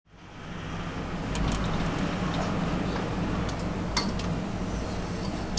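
Steady low outdoor rumble with a constant low hum, fading in over the first half second, with a few short light clicks scattered through it.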